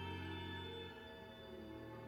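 Soft background film music of long held notes, the low notes shifting to a new chord about a second in.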